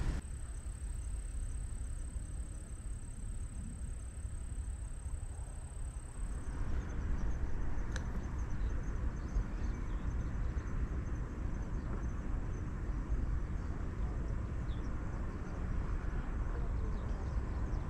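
Outdoor ambience: a steady low rumble with a thin, high insect trill that stops about six and a half seconds in, after which a broader hiss fills in.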